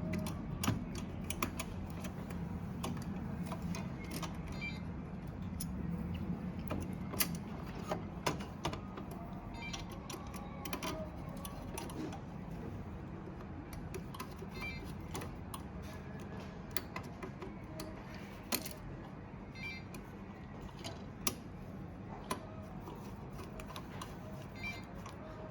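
Scattered small metal clicks and taps of a screwdriver and small parts as screws are driven and tightened into an RC mine truck's gearbox, at irregular intervals over a steady low hum.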